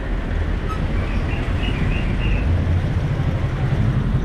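Street traffic: a motor vehicle running close by, a steady low rumble with road noise.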